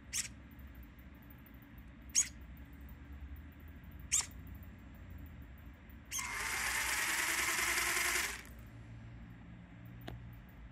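An RC car's steering servo, driven by an Arduino test routine, whirs briefly three times about two seconds apart as it swings the front wheels full left, back to centre and full right. About six seconds in, the car's electric drive motor spins the raised wheels at slight throttle, a steady whir for about two seconds that then stops, followed by a faint tick.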